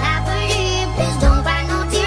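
Background music: a slow pop song, a voice singing a wavering melody over sustained low bass notes.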